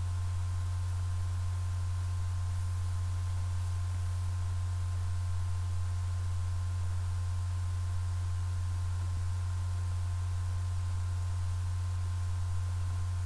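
Steady low electrical hum, with faint high steady tones above it.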